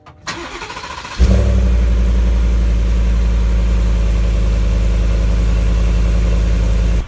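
A stock-exhaust 2018 Ford F-150's 5.0-litre V8 cranks and catches about a second in, with a brief flare on firing, then runs steadily until it stops abruptly near the end.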